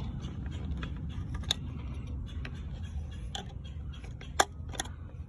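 Scattered small clicks and knocks from handling an outdoor electrical outlet and its cover, the sharpest about four seconds in, over a steady low rumble.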